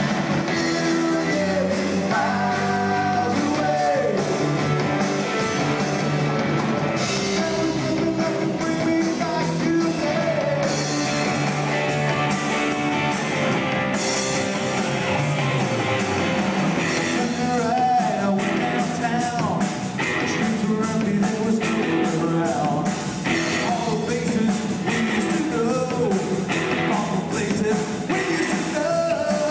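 Live rock band playing, with electric guitars, bass, drums and a singer.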